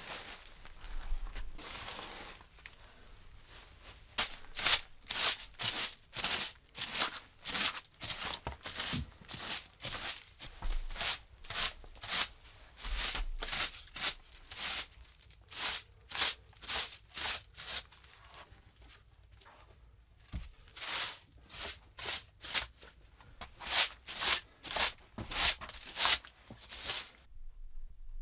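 A hand tool working a wooden board in quick, even strokes, about two a second, each one a short noisy scrape. The strokes come in two long runs with a pause of a few seconds between them.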